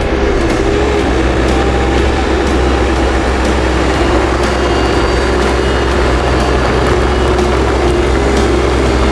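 Skid steer engine running steadily under work.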